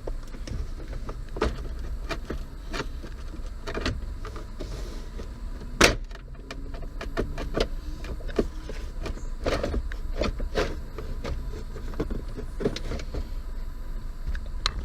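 Scattered clicks and knocks of plastic dashboard trim being handled and worked loose, with one sharper knock about six seconds in, over a low steady rumble.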